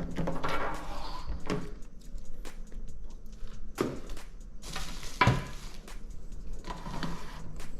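Packaging being handled during unwrapping: short rustling bursts of wrapping and several knocks and clatters as parts are moved about.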